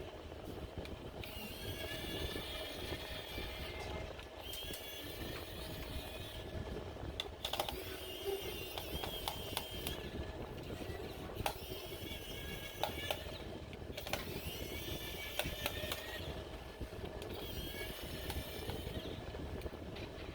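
Scattered light clicks and taps of a laptop being taken apart by hand, over a steady low rumble. Short stretches of high wavering tones recur every few seconds.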